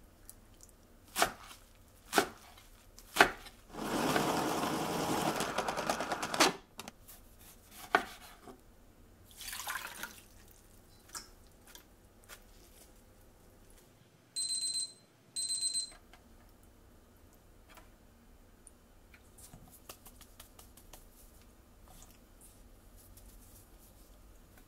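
Kitchen work sounds: a few sharp knocks, then water running and splashing into a small stainless-steel pot for two or three seconds, where shredded white leek is put to soak. About halfway through come two short electronic beeps, followed by faint handling noises.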